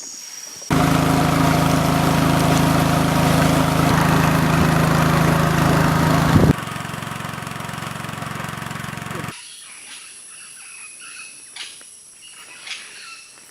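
A boat's motor running steadily and loudly, cut off short and then heard more faintly. After an abrupt cut, insects trill steadily with a few light clicks.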